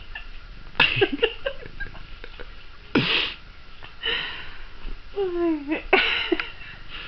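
A woman laughing in short breathy bursts behind her hands, with a brief voiced squeal about five seconds in.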